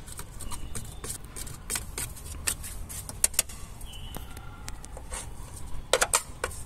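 A hand tool scraping and clicking in the metal tray under a car's windshield cowl as dried leaves and dirt are dug out. Scattered light clicks and scrapes, with a few sharper ones near the end.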